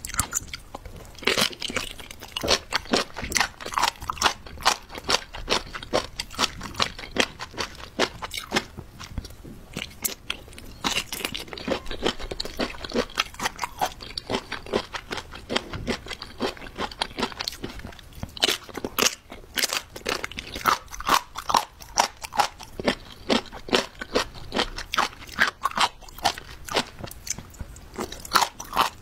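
Close-miked chewing of thick, glassy pieces of jellyfish: a steady run of irregular, crisp crunches, several a second, with each bite.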